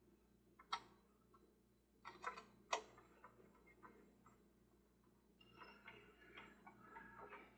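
Light clicks and taps of small parts being handled and fitted during reassembly of the ferris wheel's gear train. One click comes about a second in, a few more around two to three seconds in, and faint scattered ticking follows near the end.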